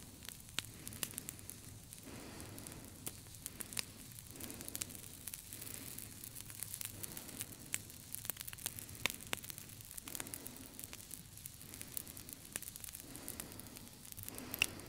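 Steady crackling and fizzing noise, thick with small sharp clicks, like static or a fire, with a faint lower rush that swells and fades every second or so.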